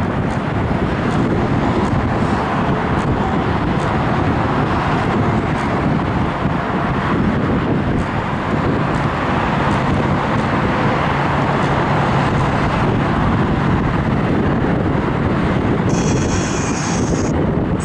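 Boeing 777 jet engines producing a loud, steady roar, with wind buffeting the microphone.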